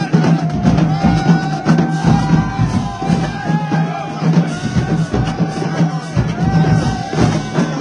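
Marching-band drumline playing a cadence: snare drums, bass drums and cymbals hit in a steady, busy rhythm.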